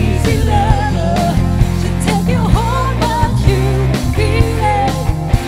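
A live pop-rock cover band playing: a female lead singer sings the melody over drums, electric guitar, keyboards and a steady bass line.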